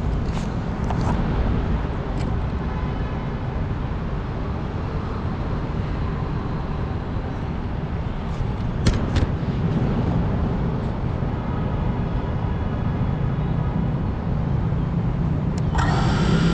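Small FPV quadcopter's motors and propellers heard through its onboard GoPro's microphone: a steady low rumble of prop wash and wind with a faint motor whine, broken by a few sharp clicks. Music begins right at the end.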